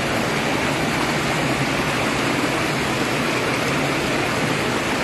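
Steady rush of running water, an even noise with no separate splashes standing out.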